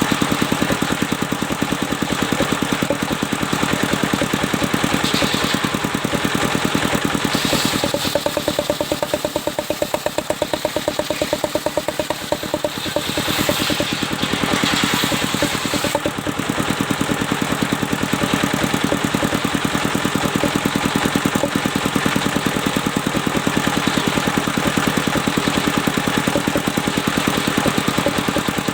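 Engine-driven sawmill machinery running steadily with a fast, even pulse. A higher hiss rises over it briefly around 8 seconds in and again for a few seconds around the middle.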